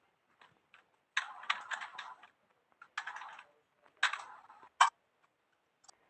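Three short bursts of clattering clicks, like small hard objects being handled.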